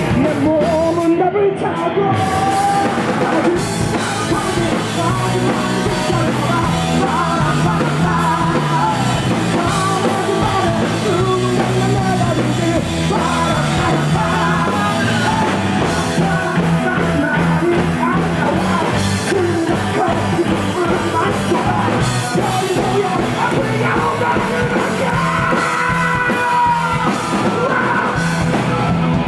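Live rock band playing loudly: drum kit and electric guitars through amplifiers, with a singer's vocals over them.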